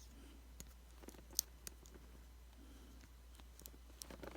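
Small, faint clicks and taps of a fingernail prying at the snap-on flex-cable connectors inside an iPhone 5c, with one sharper click about a second and a half in, over a steady low hum.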